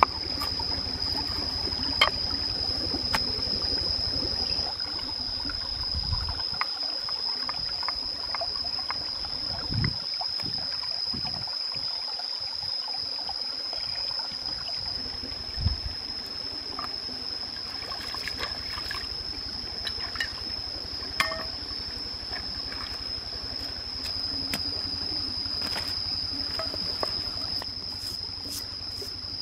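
Stream running over rocks, with a steady high-pitched insect drone above it and a few sharp knocks.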